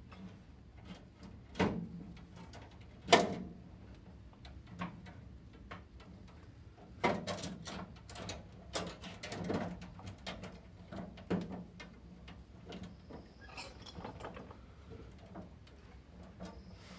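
Stainless steel fuel line being worked by hand through a car's floor tunnel: irregular metallic clicks, knocks and scrapes against the underbody. The loudest knock comes about three seconds in, and a cluster of knocks follows in the middle.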